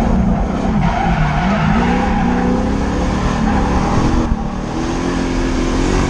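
Drift car's engine revving up and down while its tyres squeal through a slide. The engine note drops briefly about four seconds in, then rises again.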